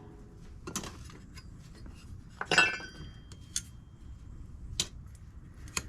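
Small metal carburetor parts and hand tools clinking against a hard surface, about five separate clinks. The loudest comes about halfway through and rings briefly.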